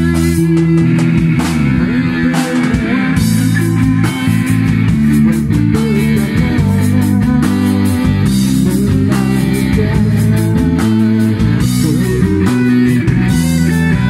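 A live rock band playing: electric guitar through an amplifier over a drum kit, with steady drum hits.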